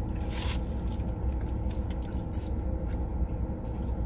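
Eating sounds: chewing and handling of fast food, with a brief rustle of a paper wrapper about half a second in. A steady low hum runs underneath.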